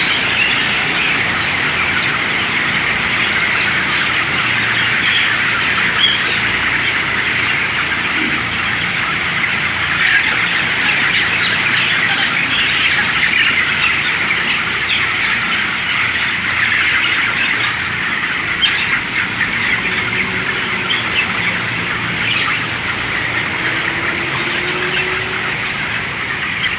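A large flock of broiler chickens chirping and squawking all at once, a dense, steady chatter of many birds.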